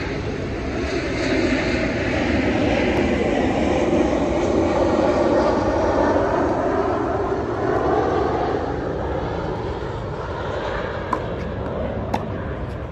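An airplane passes overhead: a loud, steady rush that swells to a peak midway and then fades. Near the end come two sharp knocks of a tennis ball being struck.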